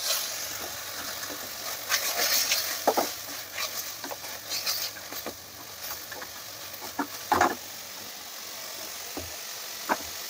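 Mutton bones and fat sizzling as they fry in onion-tomato masala in a metal kadai. A wooden spatula stirs and scrapes them against the pan with irregular knocks, the loudest about seven seconds in.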